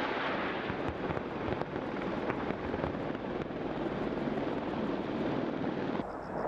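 Rolling rumble of a live-fire barrage of explosions on a hillside target area, with scattered sharp cracks in the first half. It drops to a quieter rumble about six seconds in.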